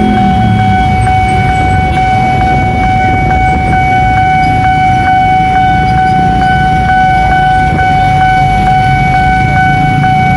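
Railway level-crossing warning siren sounding one steady electronic tone with a faint regular tick, over the engines of motorcycles and cars at the crossing.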